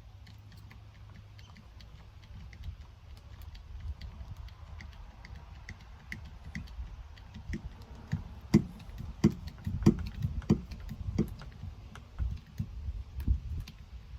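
Hydraulic hand crimper pumped to crimp a copper lug onto 1/0 battery cable: a steady low rumble, then about eight sharp knocks at an even pace, roughly one every two-thirds of a second, from the second half onward as the handle is worked.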